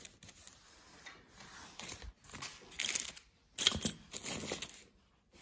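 Paper wrapping crinkling and rustling as tools from the kit are handled, in two spells of rustling around three and four seconds in.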